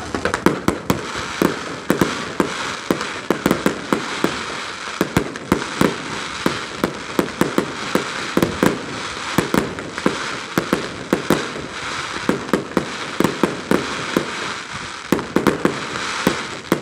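Fireworks display: sharp bangs and pops from shells bursting, several a second at irregular spacing, over a continuous crackling hiss.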